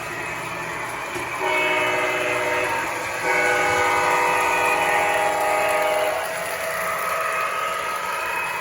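Model train locomotive's horn sounding two blasts, a shorter one about a second and a half in and a longer one of about three seconds soon after, over the steady running noise of the train on its track.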